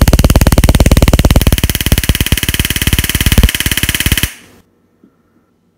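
Taser X26 stun gun arcing in drive-stun mode with its cartridge removed, the spark snapping against an egg's shell in a loud, rapid, even crackle of about twenty clicks a second that cuts off suddenly about four seconds in.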